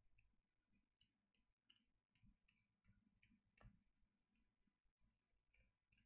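Faint, quick clicks, about two or three a second: a paint-loaded watercolour brush being tapped to flick spatters of paint onto the paper.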